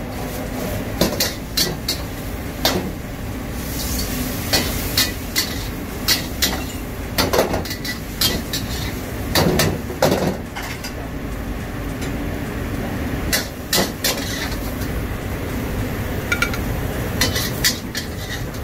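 Metal wok spatula clanking and scraping against a steel wok in irregular strikes as a stir-fry is tossed, over the steady rush of a gas wok burner.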